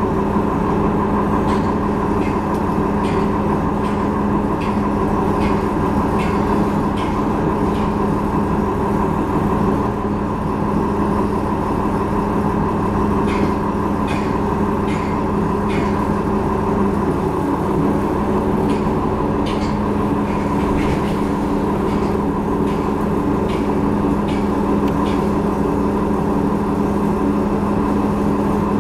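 Transit bus running, heard from inside the passenger cabin: a steady engine and drivetrain hum with scattered light clicks and rattles.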